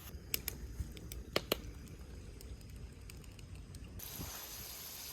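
A few light clicks and taps, two close together about a second and a half in, over a low outdoor rumble; about four seconds in a steady hiss sets in abruptly.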